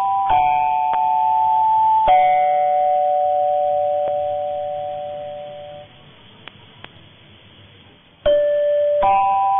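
Deutschlandfunk's 1422 kHz medium-wave AM signal carrying a repeating phrase of bell-like electronic chimes during the station's final sign-off, heard with the thin, muffled sound of AM radio. The phrase ends on a long note that fades out about six seconds in. About two seconds of faint radio hiss follow, and the chimes start again near the end.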